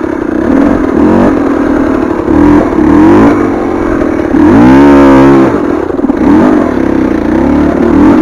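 KTM 300 TPI single-cylinder two-stroke enduro engine revving under load on a steep hill climb. Its pitch rises and falls in repeated surges with the throttle, with one longer, louder rev about halfway through.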